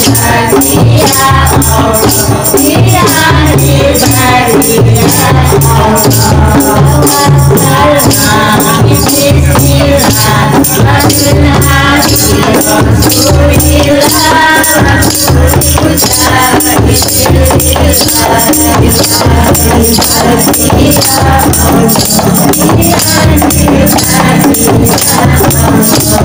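Qasidah music: women singing to a steady beat on rebana frame drums, with a fast high rattle running through.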